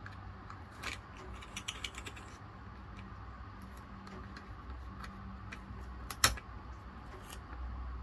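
Light plastic clicks and rustling as washi tape is pulled out of a small plastic animal-shaped tape dispenser, with one sharp snap about six seconds in as the strip is cut off on the dispenser's cutter.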